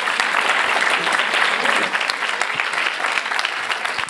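Audience applauding, a dense clapping that begins to thin out near the end.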